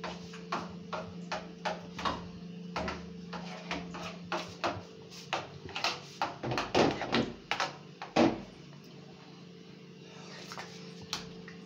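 Irregular light clicks and knocks, about two a second, of a spoon against a plate of porridge while eating, with louder knocks about seven and eight seconds in. A steady low hum runs underneath.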